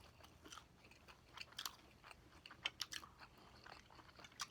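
Faint, irregular crunching and mouth clicks of someone chewing a bite of crispy fried fish.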